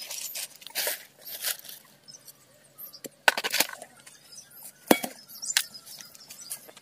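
Handling noise: a sheet rustling and a few sharp knocks and clicks as a tarp, bamboo poles and rope are worked by hand, with two louder knocks about three and five seconds in.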